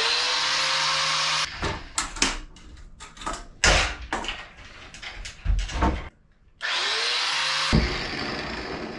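Handheld power tool spinning up with a rising whine and running in two short bursts, the first about a second and a half, the second about a second and then tailing off, with knocks and clatter of handling between them: the steel piano hinges being cut to length.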